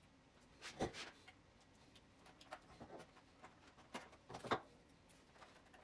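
Small pieces of a 3D stadium puzzle being handled and pressed into place: scattered faint clicks and scratches, with the sharpest taps a little under a second in and about four and a half seconds in.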